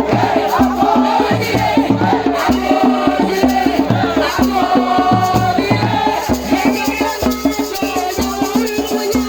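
Music with a steady, driving drum beat and many voices singing and chanting together over it.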